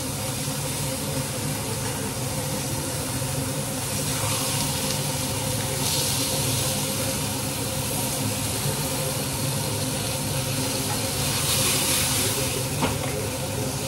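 Fish pieces frying in a pan, a steady sizzle, with a steady low hum underneath.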